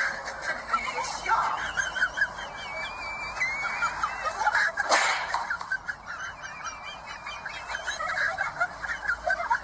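Birds calling in a dense chatter of short chirps, with a single sharp smack about five seconds in.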